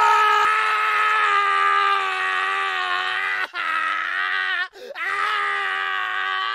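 A man screaming: a long, held, strained scream that breaks off twice for a moment a little past halfway, then carries on.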